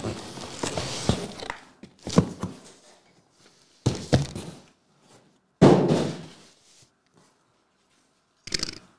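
Cardboard card-case box and wrapped card packs handled on a table: a scuffing of handling, then about four dull thumps, the loudest about six seconds in.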